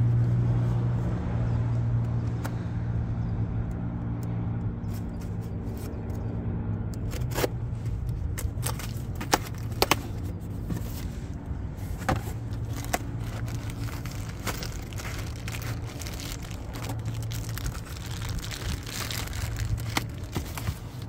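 Hands opening product packaging: scattered clicks, scrapes and crinkles of cardboard and plastic, over a steady low hum.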